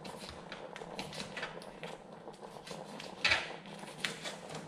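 Kitchen knife chopping small cayenne chili peppers on a plastic cutting board: a run of light, irregular taps, with one louder knock about three seconds in.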